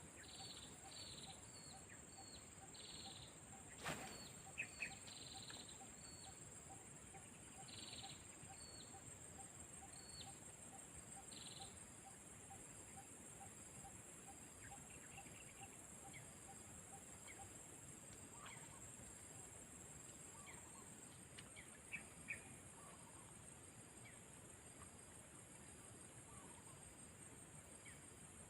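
Faint steady high-pitched insect chorus, pulsing rapidly, with short bird chirps during the first half. A faint regular ticking runs about twice a second for the first half, and there are a few isolated clicks, the sharpest about four seconds in.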